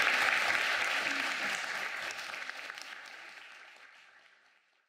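Audience applauding, the clapping fading out over about four seconds.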